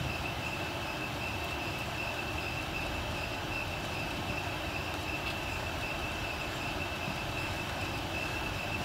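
Steady rushing background noise of a large indoor sports hall, with one constant high-pitched whine running through it.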